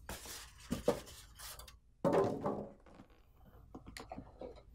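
Styrofoam packing end caps rubbing and squeaking against a plastic printer casing as they are pulled off, with the loudest squeak about two seconds in and a few light taps near the end.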